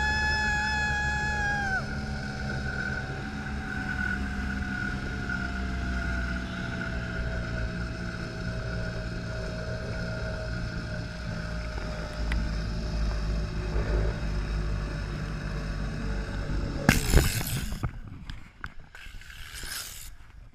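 Zipline trolley running down a steel cable, with a steady whine from its pulleys that slowly falls in pitch as the ride slows, over heavy wind rumble on the microphone. About seventeen seconds in there is a loud clatter as the rider is brought to a stop at the bottom, then the sound drops away.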